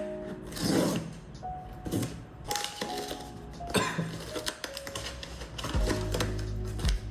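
Background music with gentle sustained melodic notes, over which there are intermittent rustles and clicks of blind-box packaging being handled.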